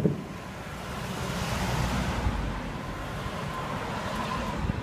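A Jōban Line train passing on the tracks nearby: a rushing noise that swells and fades over about three seconds, with a faint steady whine in its second half. A couple of low thuds from distant fireworks come underneath it.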